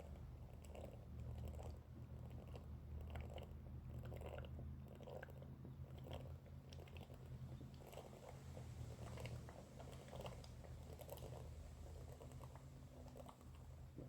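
Faint, repeated gulping as a 20-ounce Pepsi is chugged from the bottle, about one or two swallows a second, over a low steady hum.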